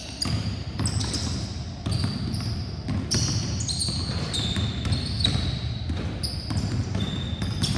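Several basketballs being dribbled on a hardwood gym floor, with uneven, overlapping bounces that echo through the hall, and short high squeaks of sneakers on the floor now and then.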